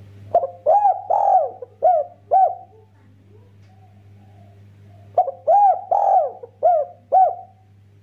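Spotted dove cooing: two phrases of about five coos each, every note rising and falling in pitch, the first phrase just after the start and the second about five seconds in.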